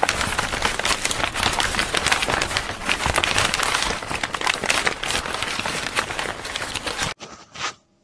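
Logo-intro sound effect: a dense, loud crackling and hissing noise, like sparks or static, that cuts off suddenly about seven seconds in.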